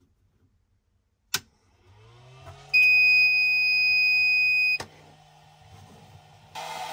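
Glitter 811H capacitor spot welder switching on: a click, a hum rising in pitch as it powers up, then a steady high beep about two seconds long that ends with a click. Near the end a fan starts with a steady rushing noise.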